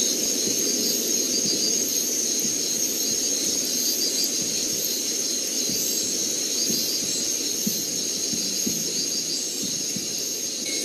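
Night forest ambience: insects trilling in a steady, high, even chorus over a steady low rushing noise, with faint soft ticks here and there.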